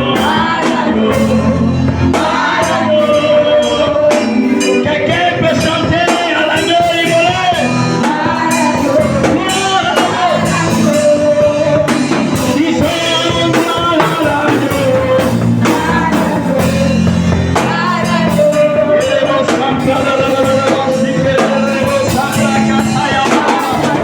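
Worship music: voices singing over a band with a steady bass line and percussion.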